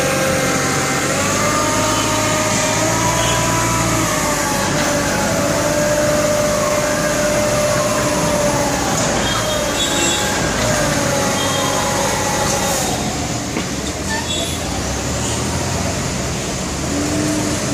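Tow truck's hydraulic lift whining, a wavering tone that slides slowly up and down for about twelve seconds before fading into steady street traffic noise.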